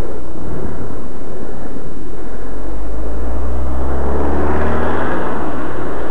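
A car overtaking at close range: its engine note swells from about three seconds in, peaks near five and then fades, over a steady roar of wind on the microphone.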